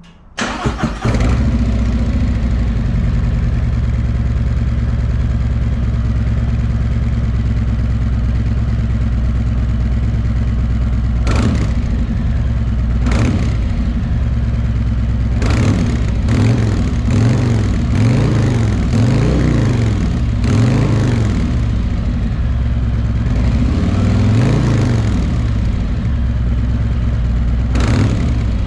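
Harley-Davidson Milwaukee-Eight V-twin on its stock exhaust, starting about half a second in and then idling. From about eleven seconds on it is blipped several times, each rev rising and falling back to idle.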